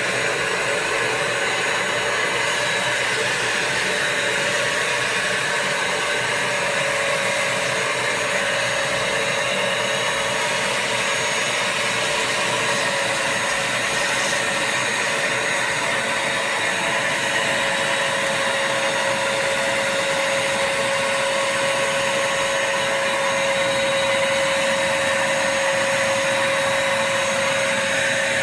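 Vacuum cleaner running steadily, its motor giving a continuous whooshing noise with a steady whine that becomes clearer after about seven seconds.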